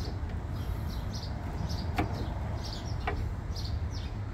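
Birds chirping repeatedly over a steady low rumble, with two sharp clicks about two and three seconds in as the meter socket's insulating jaw block is worked by hand.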